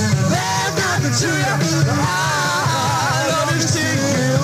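Live rock and roll band playing, recorded straight from the mixing board. A lead line bends and slides up and down in pitch over the bass and drums.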